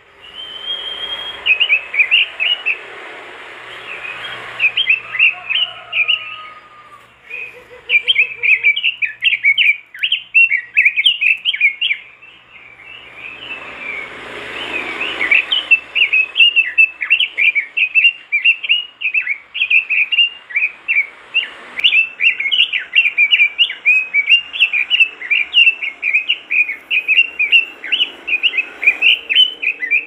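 Red-billed leiothrix (Pekin robin) singing a fast, near-continuous run of chattering, warbled whistled notes, with short pauses about seven and twelve seconds in.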